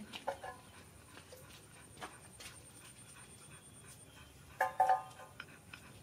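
Low background with a few faint clicks; about four and a half seconds in, a puppy gives a short, high two-part whimper.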